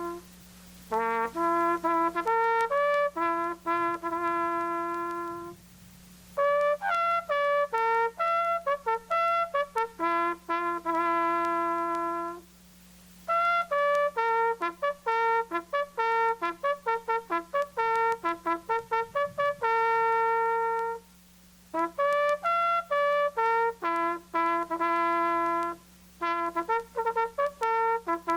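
A solo trumpet playing a ceremonial bugle call: phrases of quick repeated notes and long held notes, with short breaks between phrases.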